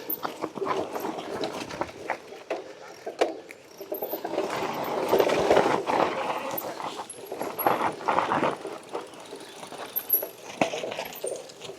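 Mountain bike riding down a rocky, technical descent: tyres rumbling over rock, with the bike rattling and clicking. The noise builds to a louder stretch about a third of the way in.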